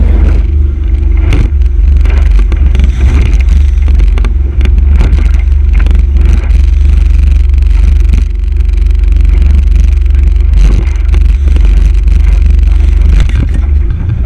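Small boat under way at sea: a loud, steady low rumble of wind buffeting the microphone over the boat's motor, broken by frequent knocks and slaps.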